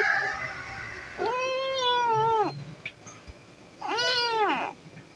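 Kitten meowing: the end of one call, then two separate meows, a longer one and a shorter one, each falling in pitch at its end.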